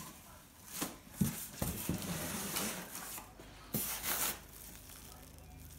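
Plastic wrapping and packing material crinkling and rustling in a cardboard box as parts are handled, with a few light knocks.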